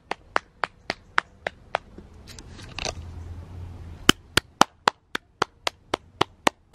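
One person clapping hands in applause, a steady run of about four claps a second. The clapping pauses for about two seconds in the middle, with a brief rustle in the gap, then picks up again.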